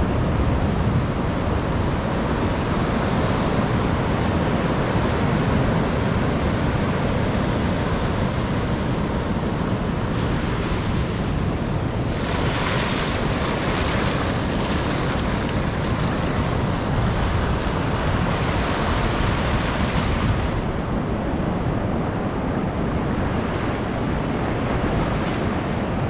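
Ocean surf breaking and washing up a sandy beach, a steady rush of noise. The hiss of the wash grows brighter from about ten to twenty seconds in, as the foam runs around the shallows.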